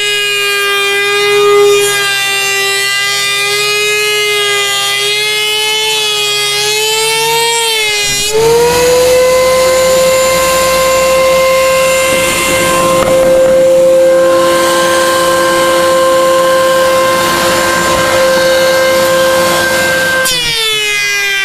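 Surface planer motor running with a loud, steady whine. About 8 seconds in, the pitch jumps up and a rushing noise of the cutterhead taking wood joins it for about 12 seconds as a black limba board feeds through, then it falls back to the unloaded whine.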